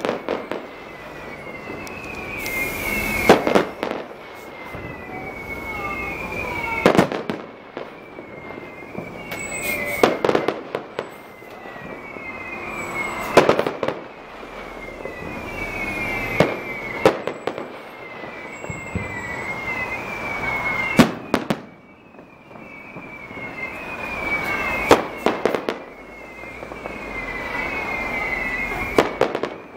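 Aerial fireworks bursting: a sharp bang every three to four seconds, with the noise swelling between bangs. A high, repeating chirp runs underneath throughout.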